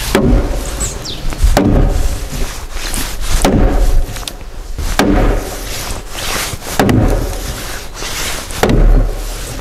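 A large wooden mallet striking a squared timber beam set on a post of a hanok frame: about six heavy blows, one every couple of seconds, each a hollow knock of wood on wood with a short ring.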